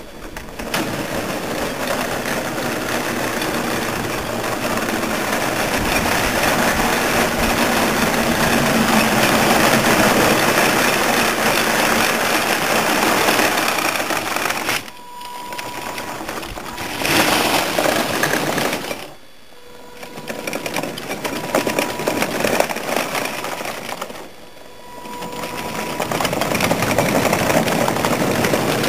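Radio-controlled 1/6 scale Marder III Ausf M tank driving on paving: its drive motors and gearboxes run while the link tracks clatter over the slabs. The sound starts about a second in, is loudest in the first half, and eases off briefly three times as the tank slows or stops and moves off again.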